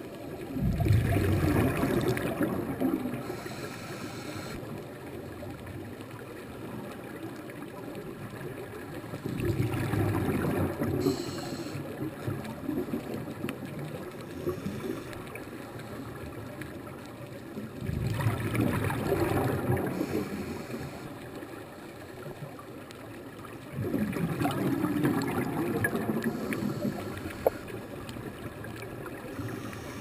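Scuba diver's regulator exhalations heard underwater: four gurgling rushes of exhaled bubbles, each two to four seconds long and about six to nine seconds apart, over a steady muffled underwater murmur.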